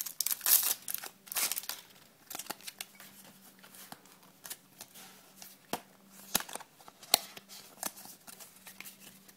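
Foil booster-pack wrapper rustling as Pokémon trading cards are pulled out, then the card stack being handled and slid over one another, with sparse sharp snaps and clicks. A faint steady hum lies underneath.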